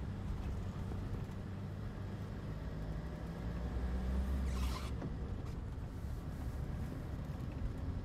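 Car driving slowly on asphalt: a steady low rumble of engine and tyres, swelling briefly with a short higher rustle about four and a half seconds in.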